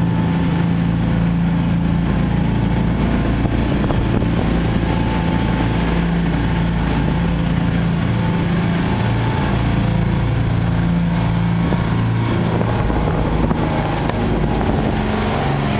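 Ferry engine running steadily under way, a low even drone over a constant rush of wind and water.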